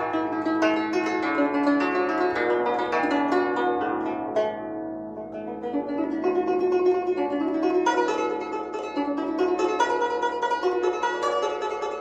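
A 21-string guzheng played solo: a continuous flowing melody of plucked notes, softer for a couple of seconds in the middle before picking up again.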